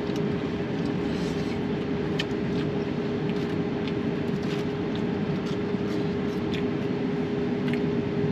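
Steady low mechanical hum with a constant tone, like a vehicle idling, with scattered light clicks and rustles from handling takeout food.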